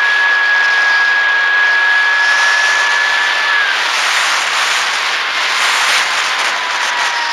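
Electric motor and propeller of an FX-61 foam flying wing heard from its onboard camera, a steady high whine over heavy wind rush on the microphone. About three and a half seconds in the whine drops in pitch and fades under the wind as the motor slows.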